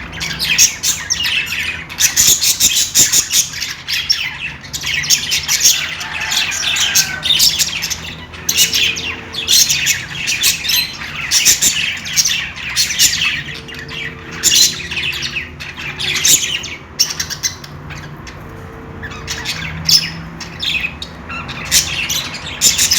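Budgerigars chattering: a dense, continuous run of short chirps and squawks with only brief pauses.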